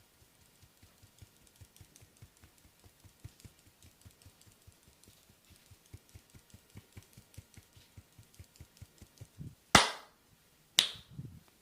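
Rapid, even tapping on a person's back in a barber's percussive massage, about five strokes a second and growing louder, then two loud sharp impacts about a second apart near the end.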